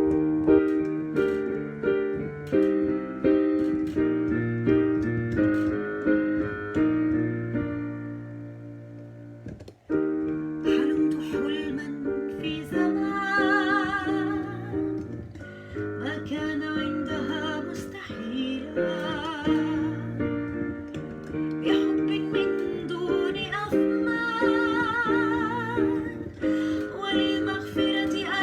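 Instrumental introduction of a cartoon theme song: piano chords that fade down, then at about ten seconds a fuller arrangement enters with a wavering vibrato melody line.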